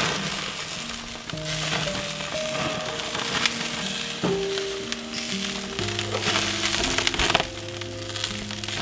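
Chicken kebab skewers sizzling on a gas grill, the sizzle swelling and easing in waves. Soft background music with held notes plays underneath.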